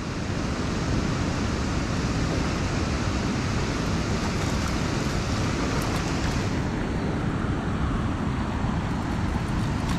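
Steady rushing noise of water pouring from a dam's outlet into the river, mixed with wind buffeting the microphone.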